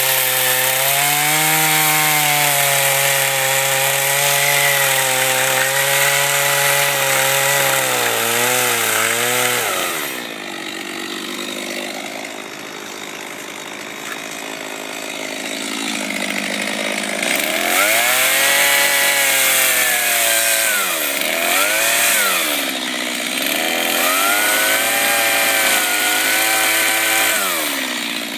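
Stihl two-stroke chainsaw carving into fir, its engine pitch rising and falling as it works the wood. About ten seconds in it eases off and runs quieter for several seconds, then comes back up and cuts again with repeated dips and recoveries in pitch.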